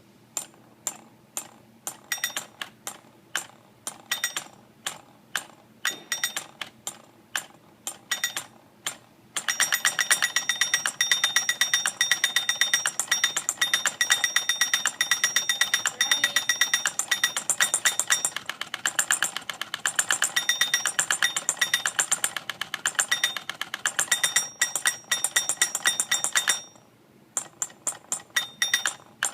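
Novelty caveman mechanical alarm clock's alarm going off: a striker hitting with a sharp metallic ring, in separate uneven hits at first, then a fast continuous hammering from about nine seconds in. The hammering stops abruptly near the end, and separate hits start again.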